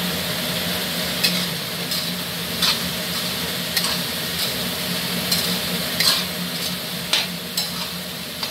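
Steel spatula stirring and scraping a sauce-coated vegetable masala in a metal kadai, with about ten sharp clinks of steel on the pan as it sizzles and fries. A steady low hum runs underneath.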